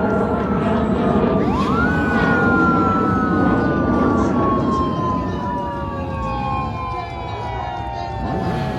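Sirens of police motorcycles winding up sharply, about a second and a half in, then sliding slowly down in pitch for several seconds, several sirens sounding together over a steady low rumble.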